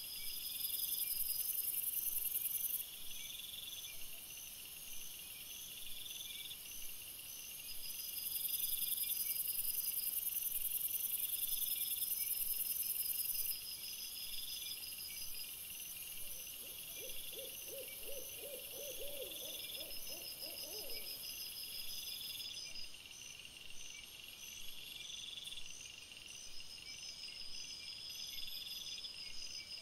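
Night insects, crickets, chirping in high-pitched repeating pulses, several rhythms overlapping. About two-thirds of the way in, a lower, rapidly pulsing call runs for about four seconds, rising slightly in pitch.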